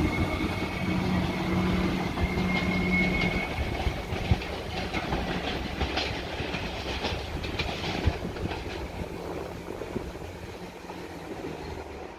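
Comeng electric suburban train pulling away and receding. A steady whine and hum fade out in the first few seconds, then the wheels click over the track now and then as the running sound dies away.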